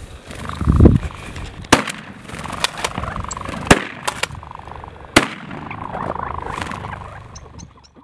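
Shotgun firing three sharp shots, roughly two seconds and a second and a half apart, with two lighter cracks between the first two. A low rumbling thump comes just before the first second, over steady wind noise.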